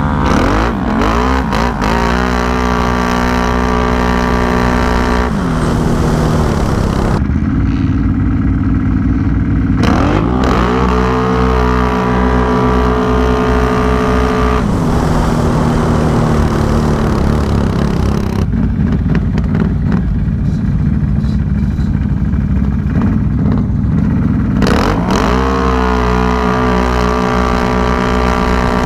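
Can-Am Renegade 1000 XMR's V-twin engine, heard from the rider's seat, revving up three times: near the start, about ten seconds in and near the end. Each time the pitch climbs quickly, holds steady and high for several seconds, then drops back to a low run.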